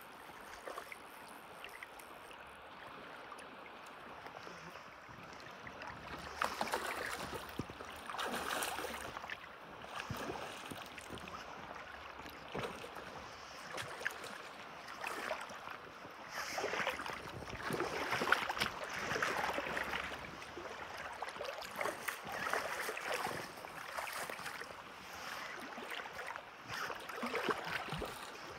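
River water running, with irregular splashing from about six seconds in as a hooked salmon thrashes at the surface while it is played on a fly rod.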